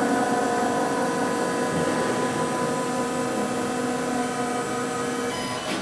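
CNC router's axis motors running as the machine drives to its home position: a steady mechanical whine with several held tones, ending in a small click.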